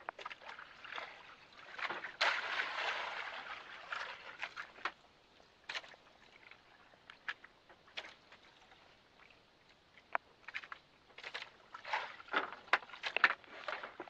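Seawater sloshing against a small outrigger boat, with a louder rush of splashing about two seconds in that fades over a couple of seconds, followed by scattered clicks and knocks from handling the fishing rod and reel, thickest near the end.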